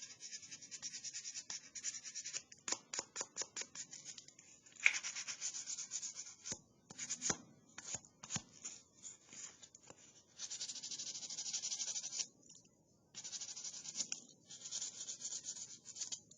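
Sandpaper rubbing back and forth by hand over a milk-painted, hand-whittled wooden bag clip: runs of quick hissing strokes with short pauses, the longest about 12 s in, as the paint is worn off the carved facets to distress it.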